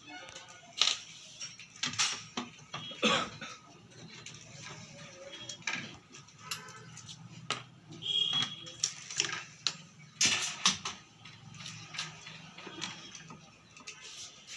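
Irregular metallic clicks and knocks of hand tools on an amplifier's sheet-metal chassis as the nuts holding its front plate are undone, over a faint steady low hum.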